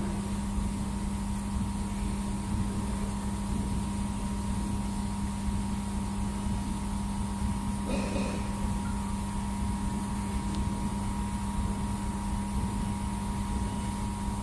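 2000 W laser welding machine running: a steady electrical hum with a constant low tone and a fainter higher one over a low rumble, with a brief faint sound about eight seconds in.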